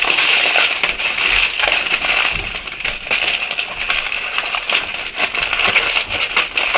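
Aluminium foil crinkling and crackling as hands crumple and press it into a small bowl shape: a dense, steady stream of sharp crackles.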